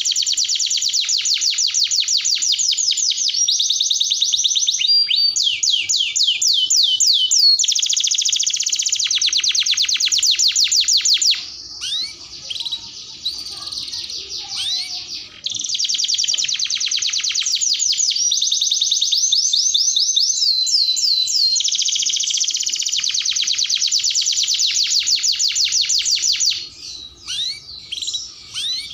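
Domestic canary singing a long, fast trilled song in back-to-back phrases, high and continuous. About halfway through and again near the end the trills drop out to a few scattered chirps for several seconds.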